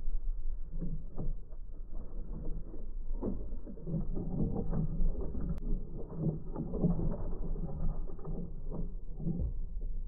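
Sparrows and tits pecking sunflower seeds off a wooden feeder tray: irregular dull taps and knocks, busiest in the middle, over a steady low rumble.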